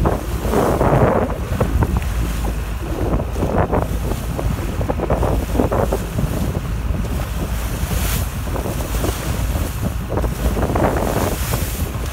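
Wind buffeting the microphone over the rush and splash of a sailboat's bow wave as the heeled hull drives through choppy water. The sound comes as irregular surges of sloshing and hiss over a constant low rumble.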